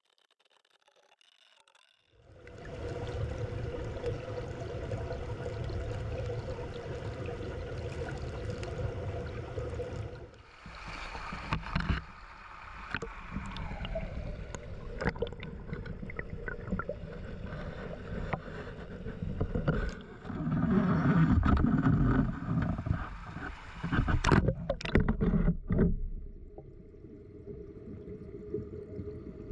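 Small mountain stream rushing and gurgling, starting after about two seconds of near silence. Louder surges and knocks come in the second half.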